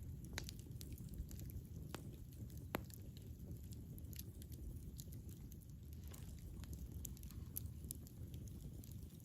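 Campfire burning: a low steady rush of the flames with scattered sharp crackles and pops from the burning wood, a few louder pops in the first three seconds.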